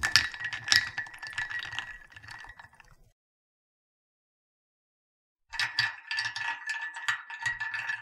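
Ice cubes swirled around in a cup, rattling and clinking against its sides with a ringing note from the cup. Two takes: the first starts at once and dies away after about three seconds, the second starts about five and a half seconds in.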